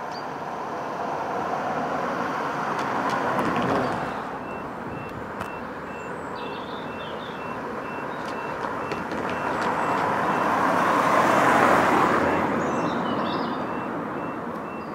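Cars passing close by on the road over the crossing, their tyres and engines swelling and fading twice, loudest about four seconds in and again near twelve seconds. From about four seconds in the level crossing's alarm starts up, an evenly pulsed high beeping that warns of an approaching train.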